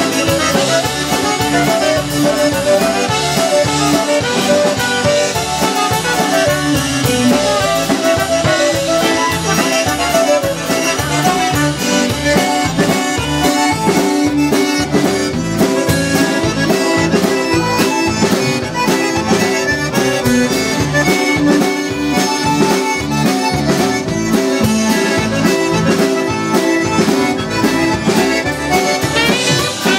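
Live polka band playing ballroom polka: accordions carry the melody over bass guitar and a steady, even drum beat.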